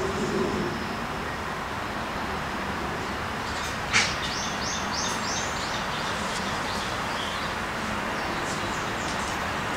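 Steady background noise, with one sharp click about four seconds in and a quick run of short high chirps just after it.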